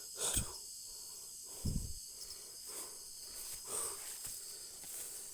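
Night insects chirring in a steady, high-pitched chorus, with a short low thump about two seconds in.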